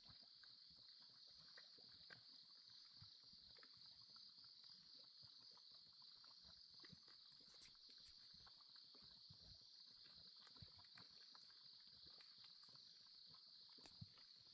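Faint natural ambience at a bubbling mud volcano. A steady, high-pitched insect drone runs over soft, irregular low pops from the bubbling mud pool.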